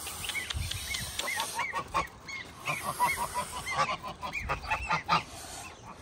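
A brood of Muscovy ducklings peeping: many short, high chirps, several a second, running on without a break.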